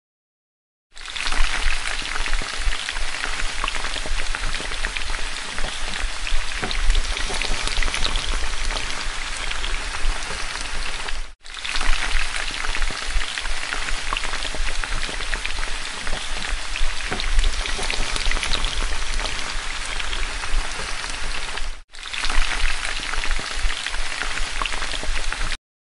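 Batter pakoras deep-frying in hot oil: a dense, steady sizzle full of small crackles and pops. It is broken twice by brief cuts.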